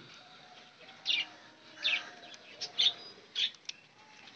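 Cage birds chirping: several short, high chirps at irregular intervals.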